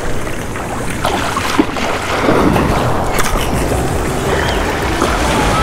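Surf breaking and washing up the sand in a loud, steady hiss, with wind buffeting the microphone and a few short crashes of water.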